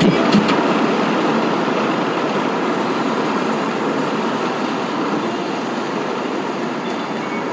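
Steady road and wind noise of a car driving at speed, heard inside the cabin.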